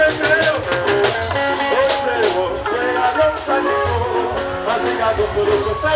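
A man singing live into a microphone over amplified music with a steady beat and heavy bass.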